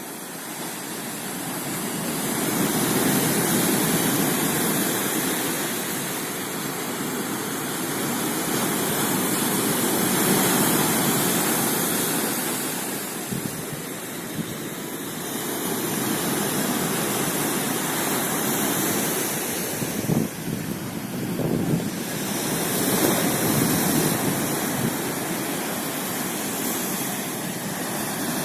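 Baltic Sea surf breaking on the shore, a steady rush rising and falling in slow swells. Wind buffets the microphone in short gusts about two-thirds of the way through.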